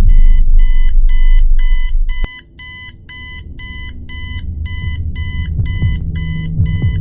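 A layered mix of tension sound effects: fast, regular high electronic beeping like an alarm, about two and a half beeps a second, over a loud deep rumble. The rumble cuts off with a sharp click about two seconds in, and a low drone then slowly swells beneath the beeping.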